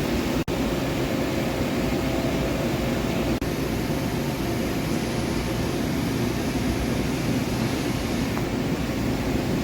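Forest-Line MajorMill 5-axis CNC gantry mill running under power, a steady mechanical hum and whir from its drives. The sound cuts out for an instant twice, about half a second in and again past three seconds.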